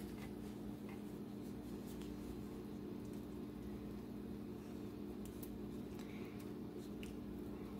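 Faint soft squishing of a basting brush spreading barbecue sauce over a rack of pork ribs, with a few light ticks, over a steady low hum.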